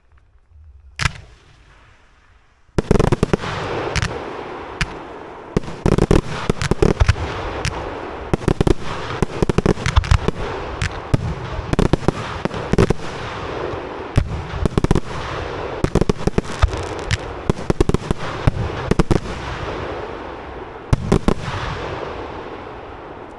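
Aerial fireworks: a single sharp bang about a second in, then from about three seconds a dense barrage of many rapid bangs over continuous crackling, easing off near the end.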